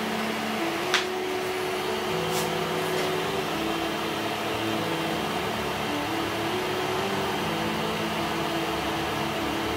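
A steady hum whose low tones step up and down in pitch every second or so, with one sharp click about a second in.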